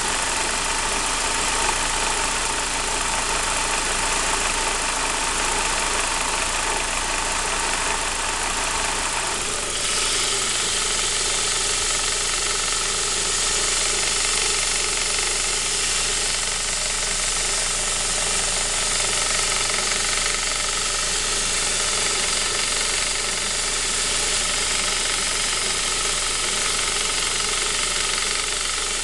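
Saab 9-5's B235 2.3-litre turbocharged four-cylinder engine running cold with a strange noise that occurs only on a cold engine; the owner wonders whether it is the timing chain. The sound shifts about ten seconds in.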